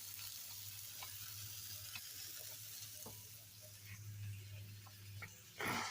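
Half-pound hamburger patties sizzling as they fry: a steady frying hiss with a few small pops over a low hum. A brief louder rush of noise comes near the end.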